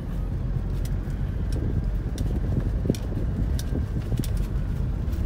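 Steady low rumble of engine and road noise heard inside a Mitsubishi Pajero Sport's cabin while driving, with a few faint ticks.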